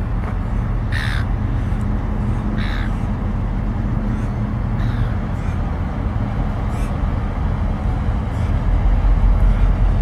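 Diesel locomotive engines running with a low steady rumble that grows louder near the end, while a crow caws three times in the first five seconds.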